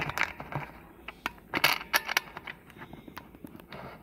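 Scattered light clicks and metallic taps of small parts and tools being handled, irregular, with a louder cluster at the start and another a little under two seconds in.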